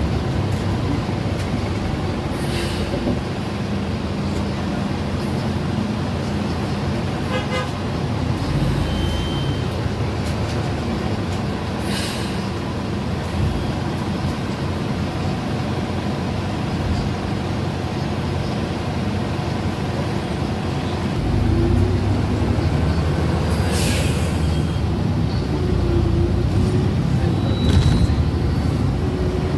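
City bus running, heard from inside the passenger cabin: a steady engine and road rumble, with a few short bursts of hiss. The low rumble grows louder about two-thirds of the way through.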